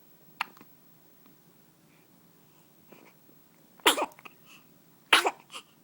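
A short, sharp hiccup about half a second in, then two sudden sneezes in the last two seconds, about a second and a quarter apart.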